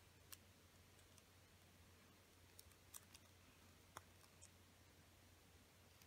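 Near silence with a faint low hum, broken by a few faint crisp ticks of a small square of origami paper being handled and creased by fingers, the clearest about three and four seconds in.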